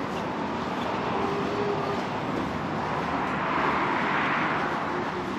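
Street traffic: a passing vehicle's engine and tyre noise swells to a peak about four seconds in, then fades.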